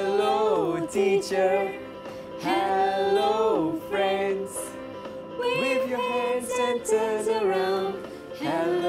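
Music with a sung vocal line: short phrases of held and sliding notes over a steady backing, as in a show's opening theme song.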